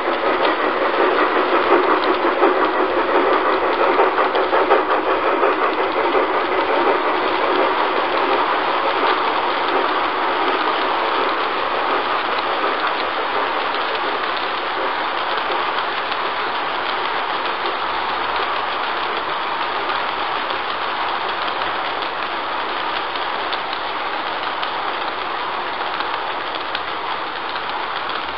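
A large-scale (Spur G) model train running past on track laid on a carpet. Its wheels and wagons make a steady, dense clattering rumble that is loudest in the first few seconds and slowly fades as the long string of freight cars rolls by.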